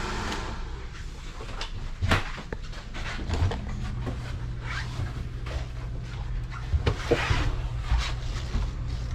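A few scattered knocks and clicks, the loudest about two seconds in and a pair about seven seconds in, over a steady low hum.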